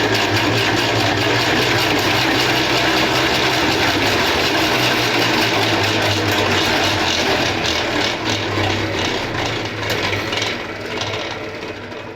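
Centrifugal honey extractor spinning uncapped honey frames, a steady mechanical whir and rattle with a low hum. It slows and fades over the last few seconds as the spin winds down.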